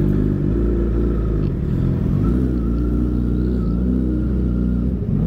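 Honda CBR1000RR Fireblade's inline-four engine running at low revs as the bike pulls away, its pitch dipping and then rising a little with the throttle.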